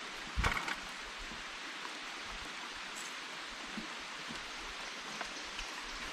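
Steady rush of flowing river water, with one brief knock about half a second in.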